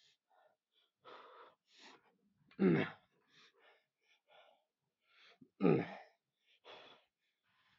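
A man grunting twice with effort, each grunt loud and falling in pitch, with hard breaths in between: the strain and breathing of someone working through a hard set of exercise.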